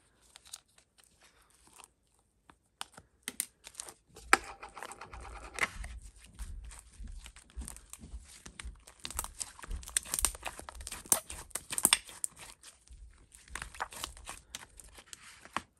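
Toilet-paper-and-shampoo slime being squished and pulled by hand: irregular crackles and clicks with soft low thuds, starting about two and a half seconds in.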